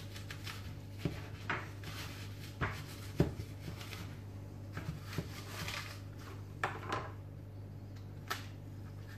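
Irregular taps and scrapes of a peeler tip and a small knife against a plastic cutting board as an apple is stabbed and twisted, about a dozen knocks with the loudest a little past three seconds in, over a steady low hum.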